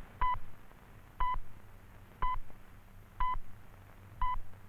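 Radio time-signal pips: short, identical beeps evenly one second apart, five of them here, the hourly time signal marking six o'clock.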